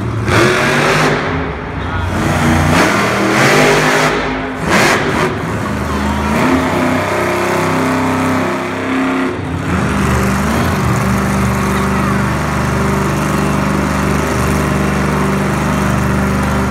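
Monster truck's supercharged V8 engine revving hard, its pitch rising and falling for the first several seconds, then held at steady high revs from about ten seconds in while the truck balances up on its front wheels.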